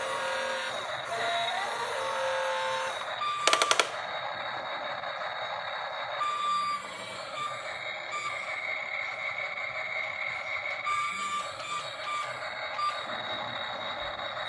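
Toy remote-control excavator's built-in electronic sound effects through a small tinny speaker: a steady buzzy engine-like sound with intermittent short beeps. A quick cluster of sharp clicks comes about three and a half seconds in.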